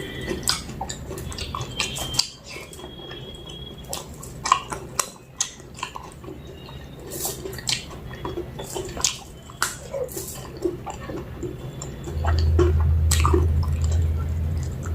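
Close-up wet eating sounds of mutton curry with rice: many short sticky smacks and clicks of chewing and lips. A steady low hum comes in about twelve seconds in.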